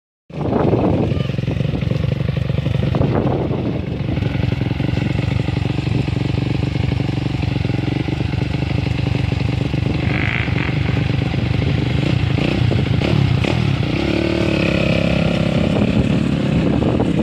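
Off-road dirt bike engine running steadily at idle, its revs rising and falling a few seconds before the end as the bike pulls away over loose gravel.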